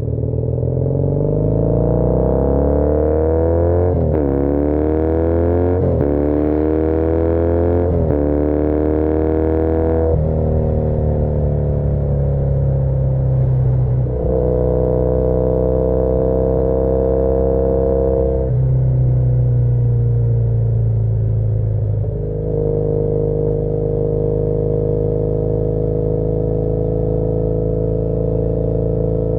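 2013 Triumph Bonneville T100's air-cooled parallel-twin engine under way, revs climbing and dropping back with upshifts about four, six and eight seconds in, then running at steadier revs with a few changes in throttle.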